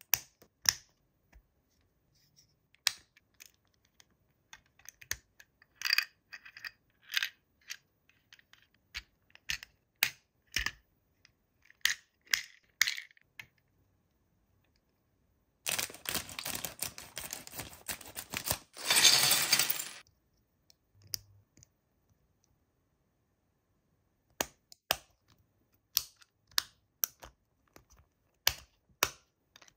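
Hands unpacking a toy: scattered light clicks and taps of plastic and cardboard packaging, with about four seconds of rustling packaging roughly halfway through.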